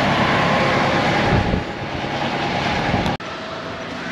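Auto-rickshaw (tuk-tuk) on the move, heard from aboard: a steady engine drone under dense wind and road noise. About three seconds in the sound cuts out abruptly and comes back quieter.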